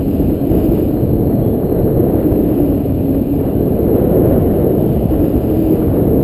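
Wind buffeting the microphone of a camera mounted on a tandem paraglider in flight: a steady, loud, low rumble.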